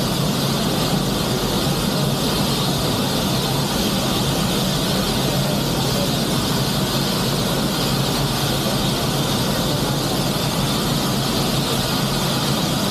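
Steady mechanical whine over a low rumble, unbroken throughout, like an engine running continuously.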